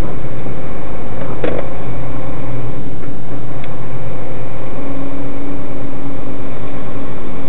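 A vehicle's engine and running noise, heard inside the cab through a dashcam microphone, as it drives slowly over a dirt road. There is one sharp knock about a second and a half in, and a steady hum joins the noise about five seconds in.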